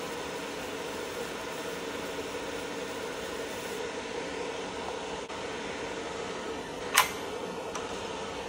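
Steady fan hum from a fiber laser marking machine, with a sharp knock near the end as a metal part is set down on the aluminium work table, followed by a fainter click.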